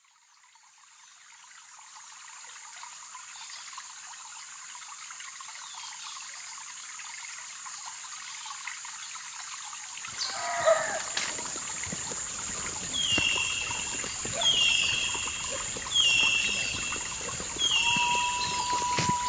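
Rainforest ambience fading in: an even, steady high-pitched haze of insects or running water. From about halfway a bird calls repeatedly over it, roughly every second and a half.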